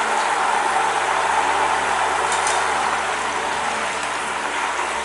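Coconut oil and ajwain decoction boiling hard in a stainless steel pan on a gas burner, a steady bubbling sizzle. It is the water of the decoction still cooking out of the oil, a sign that the medicated oil has not yet reached its finished wax-like stage.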